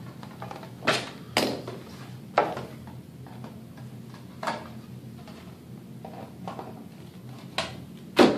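Hand snips trimming the edge of a plastic armor shin piece: a few sharp snapping cuts, spaced irregularly. Near the end comes a louder clack as the metal tool is set down on the table.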